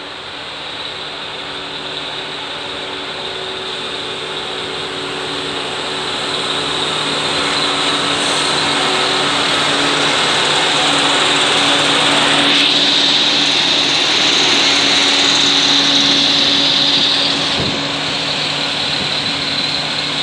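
Self-propelled diesel track maintenance machine passing at low speed: its engine runs steadily and grows louder as it approaches, with wheel and rail noise. A strong high hiss rises for several seconds past the middle as it draws level, then fades as it moves away.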